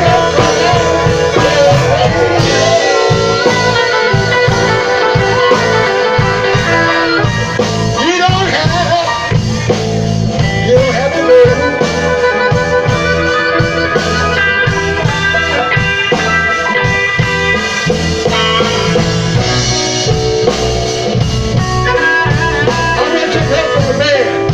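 Live blues band playing an instrumental passage: harmonica and electric guitar over a drum kit.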